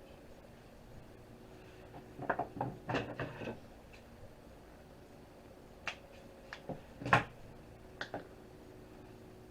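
Parts of a Zip drive being handled during disassembly: a quick cluster of clicks and knocks about two seconds in, then a few separate sharp knocks, the loudest about seven seconds in.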